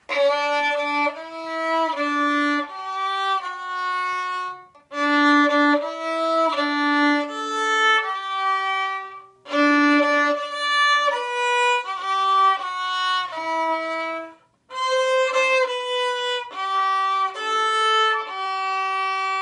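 Solo violin, bowed, playing a slow melody of held notes in four phrases, each ending with a brief pause.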